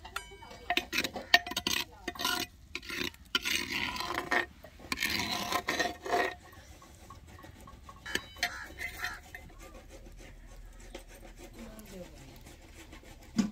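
Steel ladle scraping and clinking against a brass bowl and clay pot as thick saag is spooned out, with a brief metallic ring. The scraping is busiest in the first six seconds, then gives way to quieter scattered small handling sounds.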